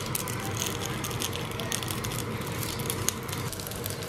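Hot olive oil crackling and sizzling in a stainless steel frying pan as raw gyoza dumplings are laid in.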